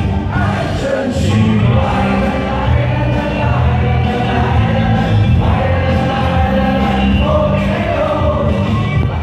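Mandopop song with backing band played over a stadium's loudspeakers, a lead singer with many voices singing along, echoing in the open stadium.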